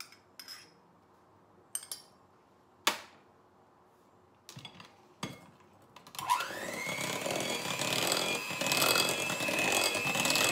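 A few knocks and clicks, then about six seconds in a handheld electric mixer switches on: its motor whine rises quickly and holds a steady high pitch as the beaters whisk the cake batter in a glass bowl.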